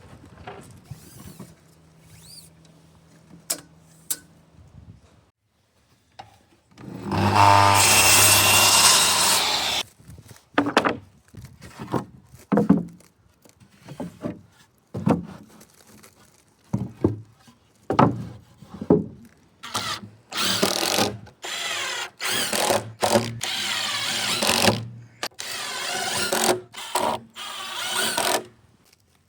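Power tool working wood: quiet handling with a few clicks at first, then a run of about three seconds, then many short bursts of a second or less, drill-like, as if driving screws or drilling repeatedly.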